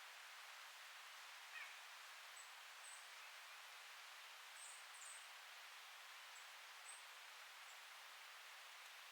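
Faint, steady rustle of wind through forest leaves, with a few faint, high, short bird chirps.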